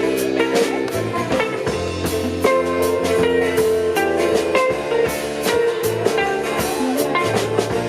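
Live band playing an instrumental passage: guitar over drums, with no singing.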